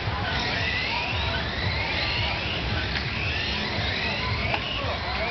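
Several 1/12-scale radio-controlled stock cars racing on a carpet oval, their small electric motors whining and repeatedly rising and falling in pitch as they pass. A couple of sharp knocks about three and four and a half seconds in.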